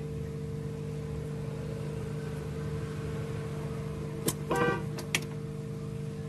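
Steady machine hum, with a few sharp clicks and a short squeak about four and a half seconds in.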